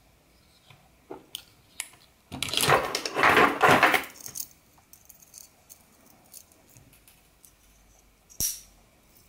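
Metal folding knives clattering against each other for about two seconds as one is put down onto a heap of knives, with a few small clicks before it. A single sharp click comes near the end.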